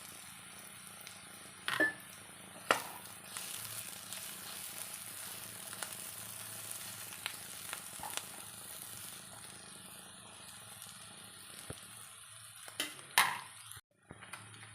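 Mushrooms and vegetables sizzling steadily in a frying pan, with a few sharp clicks from the pan, the loudest near the end.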